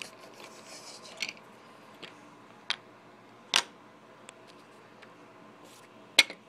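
Small plastic toys and toy dishes being handled and set down: a few scattered clicks and taps, the loudest about three and a half seconds in, over a faint steady hum.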